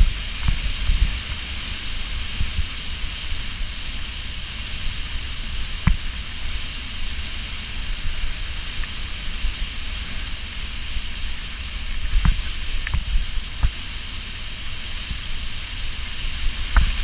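Full-suspension mountain bike riding fast down a dirt forest trail: a steady rush of wind on the microphone and tyre noise over a low rumble from the ground, with sharp knocks as the bike hits bumps, once about six seconds in and several times in the last third.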